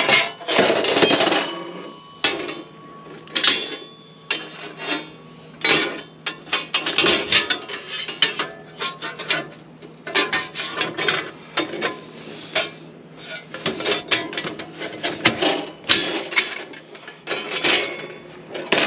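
Stainless steel panels of a flat-pack charcoal grill being fitted together by hand: a busy, irregular run of metal clanks, clicks and scrapes as the sheet-steel pieces slot and lock into place.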